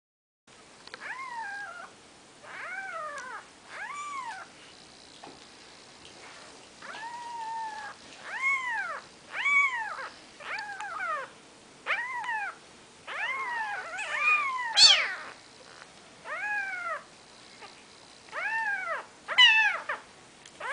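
Four-day-old Maine Coon kittens mewing over and over: thin, high calls that rise and fall in pitch, about one a second, now and then two at once.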